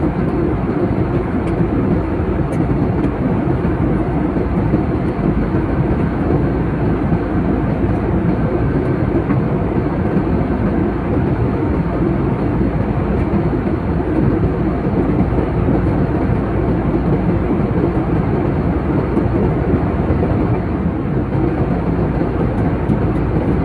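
Steady rumble and rush of an airliner's engines and airflow heard inside the passenger cabin, even throughout with no change in level.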